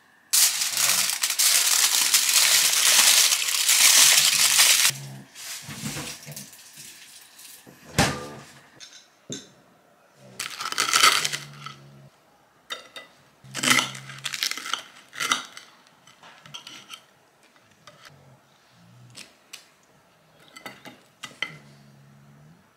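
Loud sizzling of an egg frying in a pan for about five seconds. Then a fork and knife clink and scrape on a ceramic plate as egg-and-avocado toast is cut and eaten.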